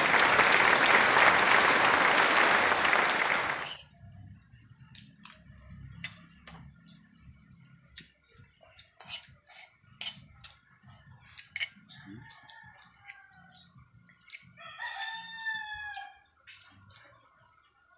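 A loud rushing noise for about the first four seconds, then a metal spoon clicking and scraping against a metal wok, and a rooster crowing once near the end.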